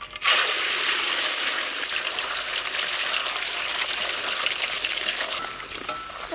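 Eggs frying in hot oil in a wok: a loud, steady sizzling hiss full of small crackles, which starts suddenly as the food goes into the oil just after the start.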